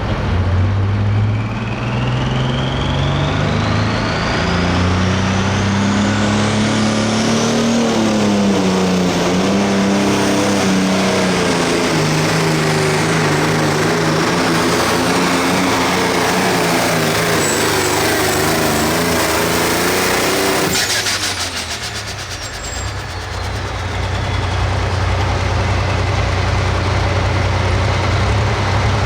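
Turbocharged diesel engine of a hot farm pulling tractor running flat out down the track. Its pitch climbs and a turbo whistle rises over the first several seconds, and it pulls hard under load. About 21 seconds in the throttle is cut suddenly and the engine drops to a low idle.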